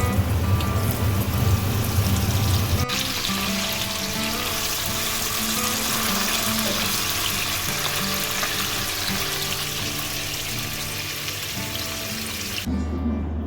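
A steady, loud hiss of rushing noise over soft background music, cutting off sharply near the end.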